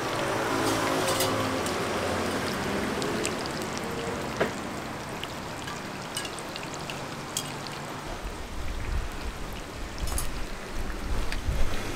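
Hot oil sizzling steadily as filled dough pies deep-fry in a wide wok, with a few sharp clicks of metal tongs against the pan. A low rumble joins in the last few seconds.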